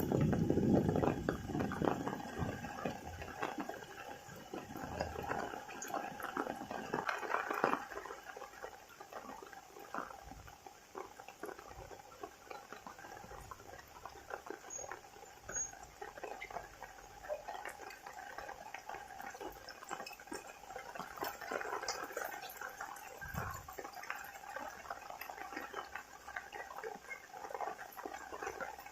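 Rain falling, with many separate drops pattering and dripping over a faint hiss, louder in the first couple of seconds. A thin steady tone runs underneath.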